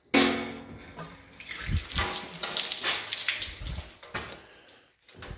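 Galvanized sheet-metal ductwork knocked once, sharply, just after the start, ringing briefly, followed by irregular scraping and rustling against it with a few dull thumps.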